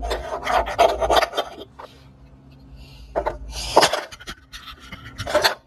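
Light knocks and handling noise close to the microphone, with short breathy puffs, as a toy horse is handled on a wooden floor.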